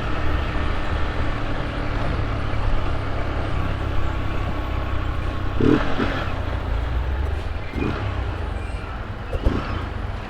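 Honda CG 125 Cargo's single-cylinder four-stroke engine running steadily under way, its intake growl ('ronquinho') made louder by the air filter box cover being removed. A few short knocks come in around the middle and near the end.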